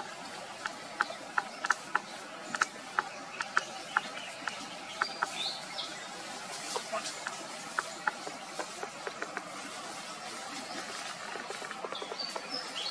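Outdoor ambience with a steady hiss and a run of sharp dry clicks, two or three a second for the first few seconds and then sparser, with a couple of short high chirps in the middle and near the end.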